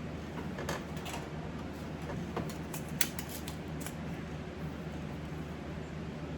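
A few light, sharp clicks of small tools being handled at a workbench, over a steady low hum.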